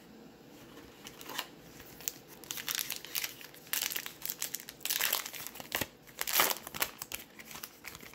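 A Topps Heritage baseball card pack being torn open by hand, its plastic wrapper crinkling in irregular rustles. The rustling starts about a second in and is loudest about six seconds in.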